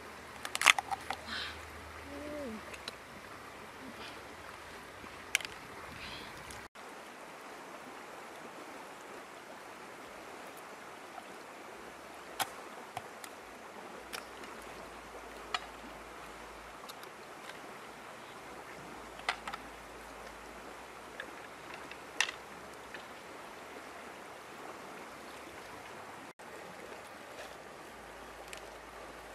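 Shallow stream water running steadily, with sharp clicks and knocks every few seconds. The loudest clicks come in a cluster about a second in, as a crab's shell is pried apart by hand.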